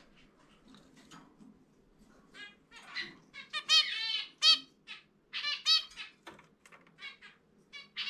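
Zebra finch song: scattered short nasal notes, then a loud run of quick buzzy and chirping syllables in the middle, and a few more notes near the end.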